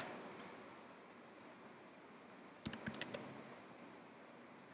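Computer keyboard typing: one sharp keystroke at the start, then a quick run of four or five keystrokes a little past halfway, with faint room hiss between.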